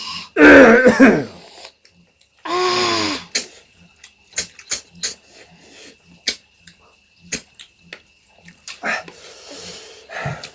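Two short, loud vocal sounds, one in each of the first three seconds, then a run of small mouth clicks and smacks at irregular intervals: eating noises from a snail curry meal.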